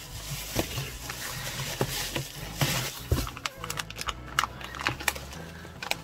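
Plastic bubble wrap rustling and crinkling as it is handled and pulled out of a cardboard box, with irregular crackles and a few sharper clicks.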